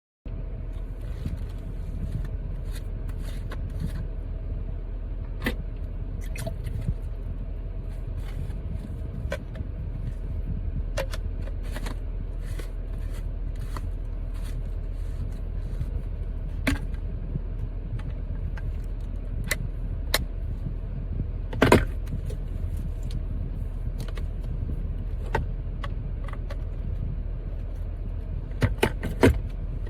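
Steady low rumble of a car on the move, heard from inside the cabin, with scattered light clicks and rattles, the loudest cluster about 22 seconds in.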